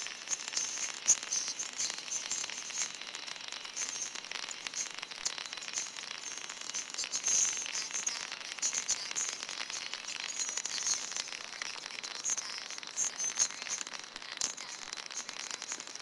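Dense crackling static: constant hiss thick with rapid clicks and pops, the sound of a badly degraded soundtrack.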